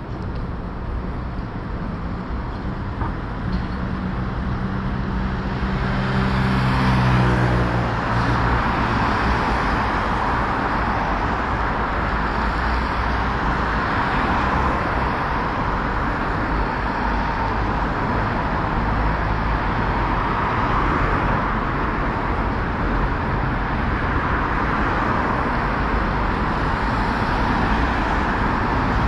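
City street traffic. A vehicle's engine hum builds up and passes about seven seconds in, its pitch sliding down as it goes by. A steady wash of road and tyre noise from passing cars follows.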